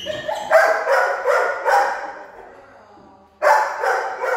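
A dog barking: a quick run of about four barks, a pause, then another loud bark or two near the end.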